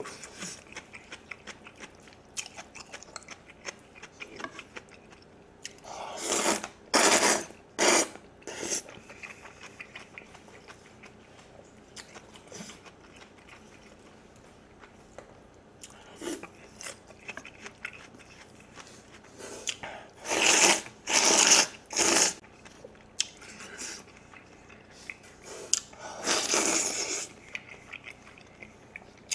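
Close-miked eating of thick jjajangmyeon noodles: wet chewing and lip smacks throughout, broken by several loud slurps, two clusters of them about six seconds in and again about twenty seconds in, and one more near the end.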